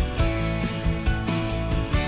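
Background music with a steady beat under sustained notes.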